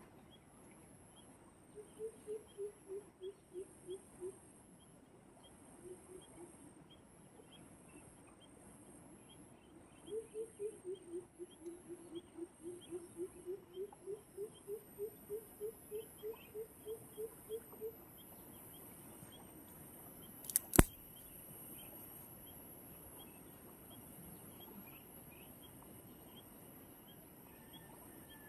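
An animal calling: two runs of low hooting notes, about three or four a second, the longer second run sliding down in pitch and back up. Later a single sharp knock stands out as the loudest sound.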